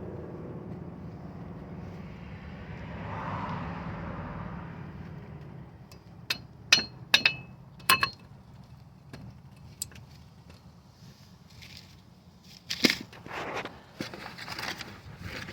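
Metal-on-metal clinks and scrapes of a brake pad being set into a caliper bracket: a handful of sharp clicks about six to eight seconds in, then rougher scraping near the end, over a steady low hum.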